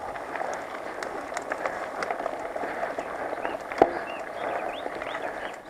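Mountain bike descending a rough dirt singletrack: a steady rumble and rattle of knobby tyres on dirt and stones, with scattered clicks of chain and loose stones and one sharp knock a little before four seconds in. A few brief high squeaks follow around the knock.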